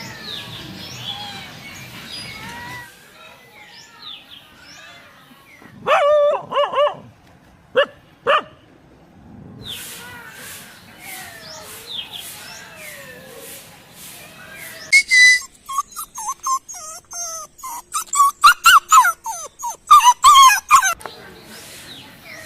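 Dog barking and whimpering. There are a few loud barks about six to eight seconds in, then a quick run of short, high yelps and whimpers near the end.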